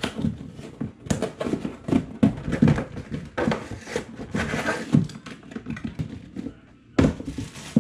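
Cardboard box and plastic packaging being handled during an unboxing: irregular taps, knocks and scrapes, with a longer stretch of rustling around the middle.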